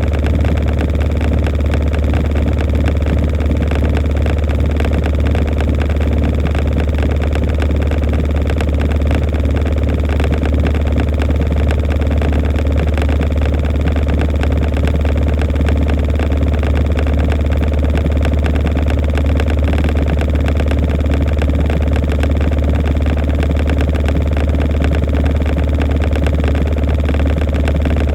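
Samsung Grande washing machine running its quick-wash course with a padded jacket inside: a steady, loud low hum that does not change.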